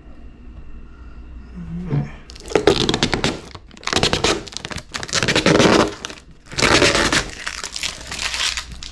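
Cardboard box and packaging being torn and opened by hand: several loud bursts of tearing, scraping and crinkling, starting about two seconds in.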